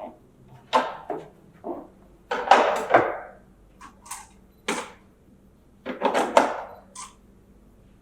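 Parts of a slushy machine being handled and fitted, an irregular run of clicks, knocks and rattles, loudest about two and a half seconds in and again around six seconds in.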